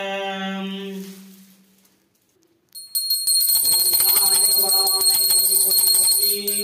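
A man's voice holds a long chanted note that fades out within the first second or so. After a short pause, a small brass puja handbell is rung rapidly and continuously for about four seconds, a bright ring with a quick clatter of clapper strikes, stopping just before the end.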